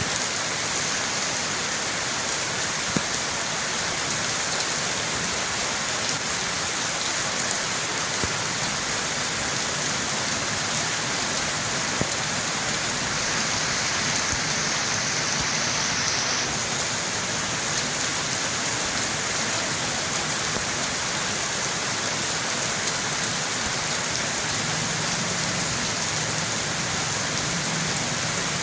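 Steady rain falling, an even hiss with a few single drop clicks.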